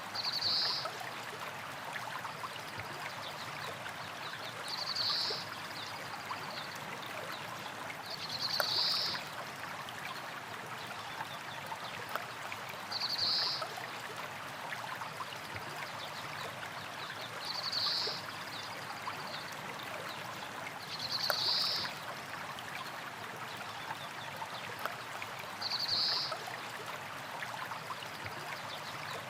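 Small stream of water flowing and trickling over rocks, a steady splashing babble. A short, high, buzzy trill sounds over it about every four to five seconds, seven times.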